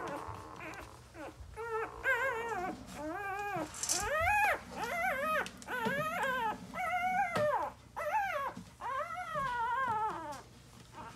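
Very young Sproodle puppies whining and squeaking: about eight high, wavering whines in a row, each rising and falling in pitch, starting about a second and a half in and stopping shortly before the end. These are newborn puppies' early calls as they find their voices.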